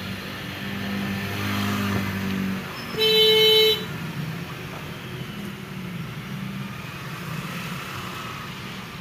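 Vehicle engine and road noise heard from inside a car's cabin, steady and low, with a vehicle horn sounding once for just under a second about three seconds in. The horn is the loudest sound.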